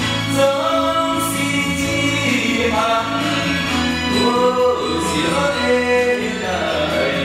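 Taiwanese-language ballad: a singing voice carrying the melody over a steady backing band.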